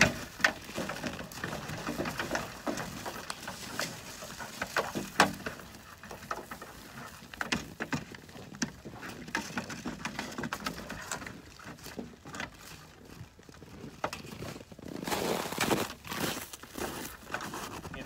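Grain poured from a bucket pattering into a feed trough, then a flock of sheep eating from it: irregular crunching and knocks as they jostle at the trough, with a burst of rustling near the end.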